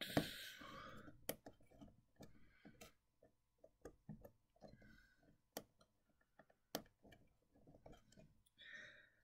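Faint, irregular clicks and scratches of jumper wire leads being handled and pushed into the contacts of a solderless breadboard, with a soft breath near the start.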